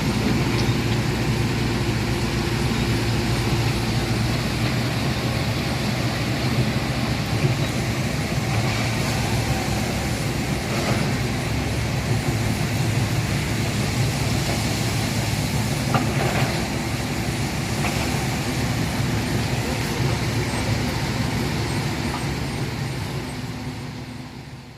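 Tata Hitachi excavator's diesel engine running steadily under work, with a few knocks, fading out near the end.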